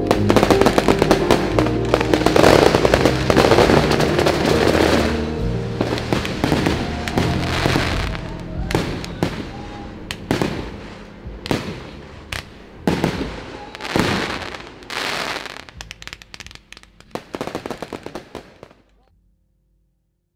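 Fireworks display: sharp bangs and crackling showers. Music runs under them for the first few seconds and then fades. The bursts get sparser and quieter, then the sound cuts off suddenly near the end.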